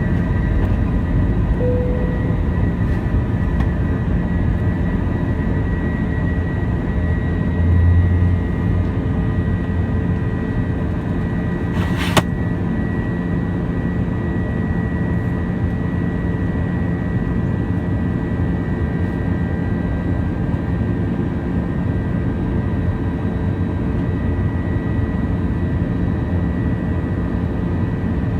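Airbus A321 jet engines heard from inside the passenger cabin: a steady, loud low rumble with a faint steady whine on top. There is a brief low thump about eight seconds in and a sharp click about twelve seconds in.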